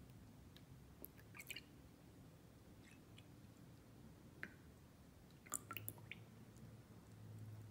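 Milk being poured into a glass, heard very faintly as soft splashes and drips with a few small ticks, the loudest cluster shortly before six seconds in as the stream thins.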